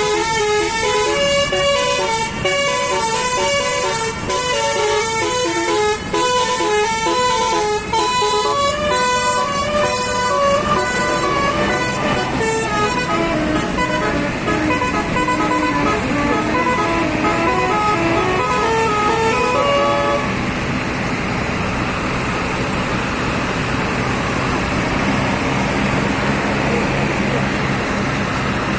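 Indonesian bus "telolet" Basuri multi-tone air horn playing a tune in quick stepped notes, sliding down and back up like a siren near the end of the tune. After about twenty seconds the horn stops and only a steady engine noise remains.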